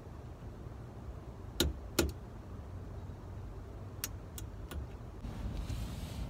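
Two sharp metal-on-metal hammer strikes on a Brembo brake caliper, about a second and a half in and half a second apart, followed by three lighter taps around four seconds in, against a low steady rumble.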